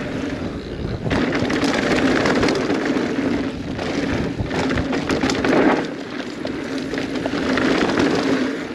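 Mountain bike riding fast down a rough trail: tyres running over stones, the bike rattling and knocking throughout, with wind buffeting the microphone.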